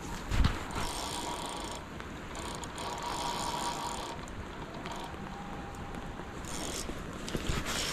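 Okuma Epixor XT 20 spinning reel clicking and whirring in stretches as line is worked in on a hooked steelhead, over a steady hiss, with a thump about half a second in.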